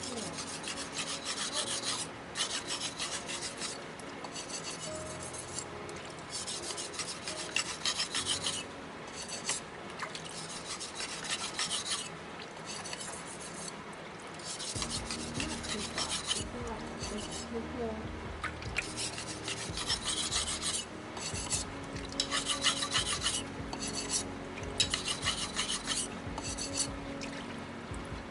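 Steel kitchen knife blade being stroked back and forth on a whetstone, a gritty scraping in runs of quick strokes broken by short pauses.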